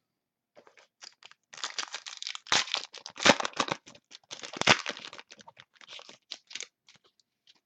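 Crinkling and rustling of trading cards and their pack wrapper being handled, in bunches of quick crackles that are densest in the middle.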